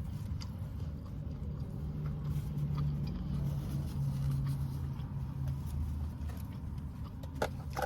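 Car engine idling, a steady low hum heard from inside the cabin, with a few faint small clicks over it.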